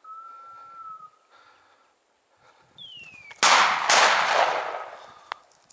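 Two shotgun shots about half a second apart, a bit over three seconds in, each followed by a long decaying echo, fired at a flushed woodcock.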